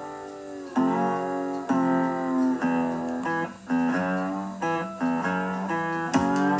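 Background music: a guitar playing sustained chords and notes that change about once a second.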